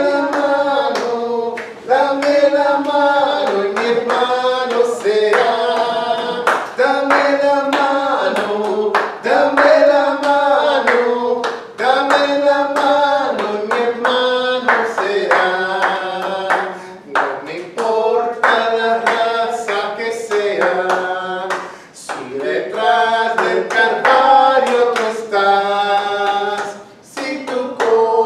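Spanish church chorus sung by a small group with a male lead voice, accompanied by steady rhythmic hand clapping on the beat. The singing comes in phrases with short breaths between them.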